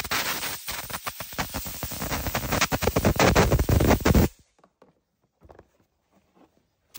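Compressed-air blow gun blasting through a hybrid battery cooling duct and its filter to clean them: a loud, rough hiss with rapid fluttering that cuts off sharply about four seconds in.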